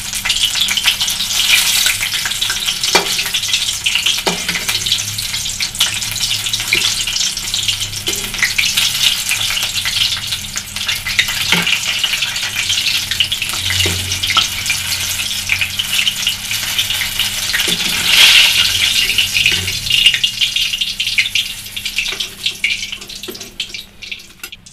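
Paneer rolls wrapped in moong dal papad sizzling as they deep-fry in hot oil in a wok, with a few light knocks of a slotted metal spoon against the pan. The sizzle dies away near the end.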